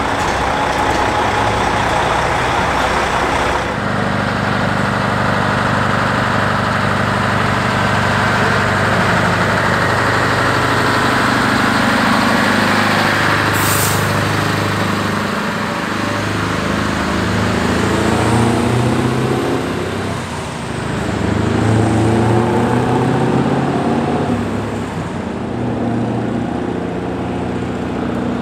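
Diesel engines of heavy race-transporter trucks pulling away and passing close, the engine note rising and dropping again and again as they work up through the gears. A short hiss of air comes about halfway through.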